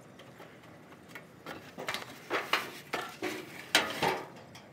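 Screwdriver clinking and scraping against a sheet-metal panel: a run of sharp metallic clicks and scrapes starting about a second and a half in, the loudest two near the end.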